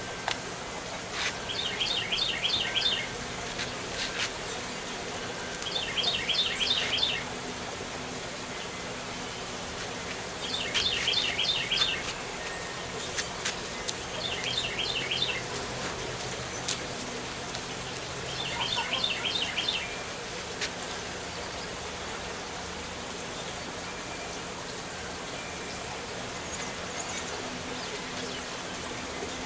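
A songbird repeating a short, rapid trill of high notes about five times, a few seconds apart, over a steady background hiss, with a few sharp clicks in between.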